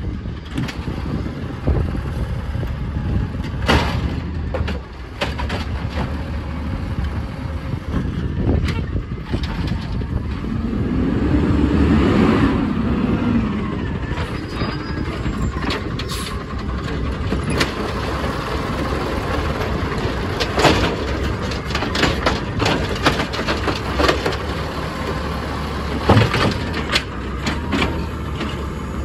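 2012 Peterbilt 320 garbage truck with an Amrep automated side loader, running on natural gas, creeping up to the curbside carts: its engine runs steadily and swells about midway as it pulls forward, with several sharp knocks and a hiss of air brakes.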